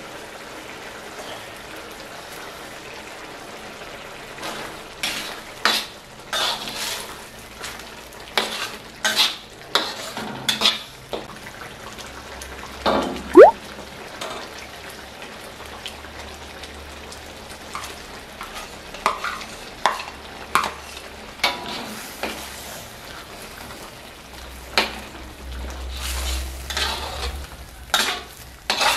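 Metal spatula stirring and scraping a thick chili sauce in a stainless steel wok, with repeated clinks and scrapes against the pan over a steady sizzle. A brief rising squeak sounds about halfway through.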